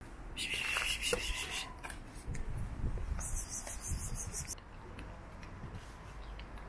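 Two short bursts of rasping, rubbing noise, the first about half a second in and the second about three seconds in, as a paper plate of dry cat kibble is handled and set down on asphalt.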